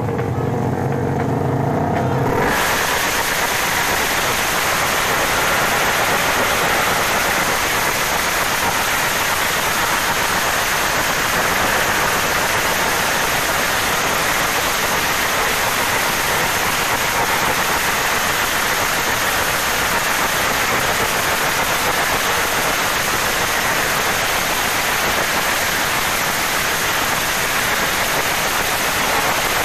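Suzuki Raider 150 motorcycle exhaust crackling and backfiring in rapid, continuous pops while the engine is held at high revs, shooting flame from the pipe. The popping thickens into a steady hiss-like crackle about two seconds in and keeps on without a break.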